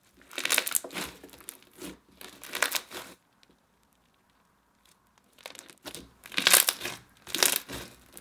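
Fishbowl slime packed with plastic fishbowl beads being squished and stretched by hand, crunching and crackling in bursts, with a pause of about two seconds in the middle.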